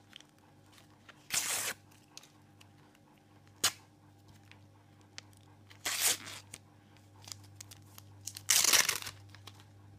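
Foil Panini sticker packet being torn open and its wrapper crinkled, in three short bursts, the loudest near the end, with a single sharp click between the first two.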